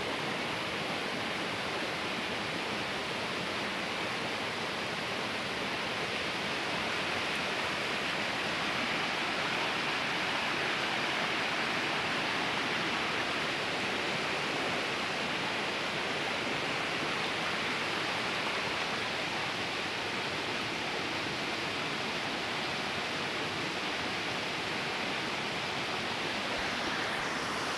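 Shallow river water rushing steadily over rocks and gravel, an even unbroken wash of sound.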